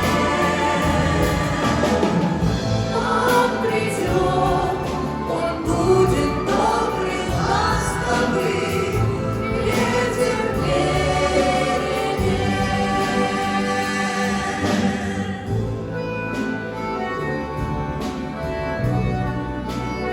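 Choir and solo voices singing a song with an orchestra of Russian folk instruments. About three-quarters of the way in, the singing gives way to the orchestra playing alone.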